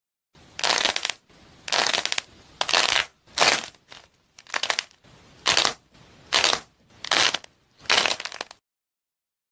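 A hard, glossy shell over a soft foam filling cracking and crunching as hands squeeze it, in about nine short crackling bursts roughly a second apart, stopping abruptly near the end.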